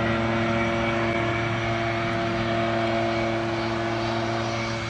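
Leaf blower running steadily, its engine drone holding one pitch.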